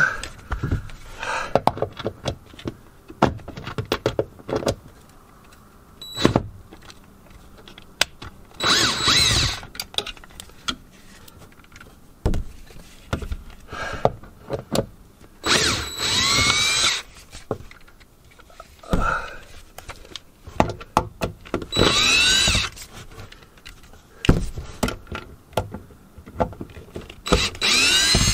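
Cordless drill run in four short bursts of about a second each, its pitch rising as the motor spins up, backing out the screws of a ceiling light fixture box. Between the runs, scattered knocks and clicks of the drill and screws being handled.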